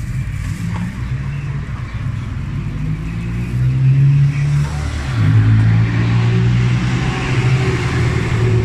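A motor vehicle's engine running close by, its pitch stepping down about five seconds in.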